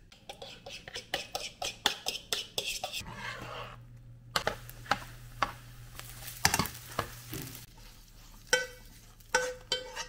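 A metal utensil stirring and scraping scrambled eggs in a nonstick frying pan, with quick taps and clicks against the pan. The eggs sizzle in the middle stretch, and more knocks come near the end as the eggs are scraped out of the pan.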